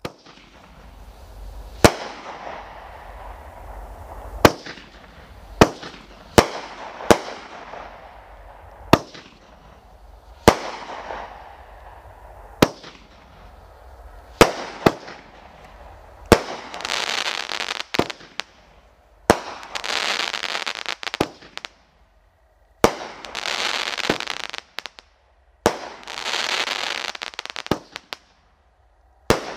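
World Class Fireworks 'Loyal to None' 500-gram firework cake firing. It starts with a string of sharp bangs about once a second, then from about halfway gives repeated bursts of crackling, each lasting a second or two, with a bang between them.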